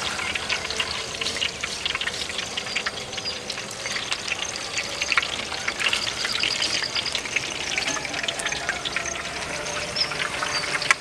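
Hot oil sizzling and crackling steadily in a wok as whole bananas deep-fry in their skins.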